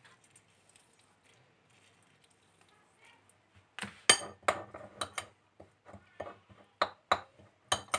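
Metal spoon stirring moistened desiccated coconut in a white ceramic bowl, clinking and scraping against the bowl about a dozen times at an irregular pace, starting about halfway through.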